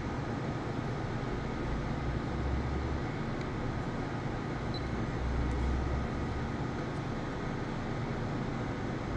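Steady mechanical hum and noise, with a few faint steady tones running through it and a low rumble that swells twice.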